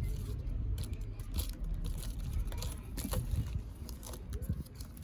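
Outdoor street ambience: a steady low rumble with scattered light clicks and taps.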